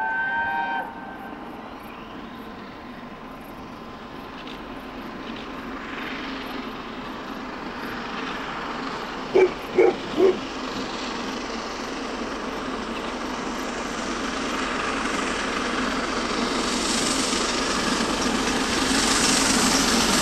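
Peppercorn A1 Pacific steam locomotive 60163 Tornado approaching at speed with a passenger train, its running noise growing steadily louder. A little under halfway through, three short whistle blasts in quick succession.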